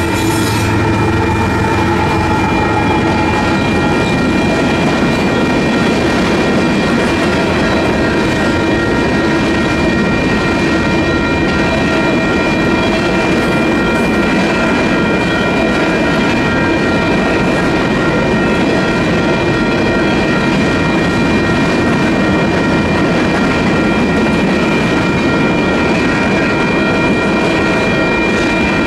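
Union Pacific freight train rolling through a grade crossing, the wheels of empty centerbeam flatcars and boxcars clattering over the rails. A locomotive's engine fades out about a second in, and the crossing's electronic bell rings steadily throughout.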